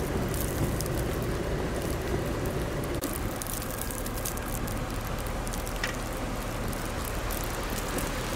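Blizzard wind with wind-driven snow pelting and ticking, many small hits over a steady low rumble.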